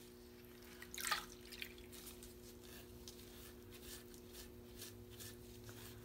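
Faint water sounds from a grout sponge being rinsed and squeezed out in a small bowl of water: a brief splash about a second in, then a few soft drips, over a steady low hum.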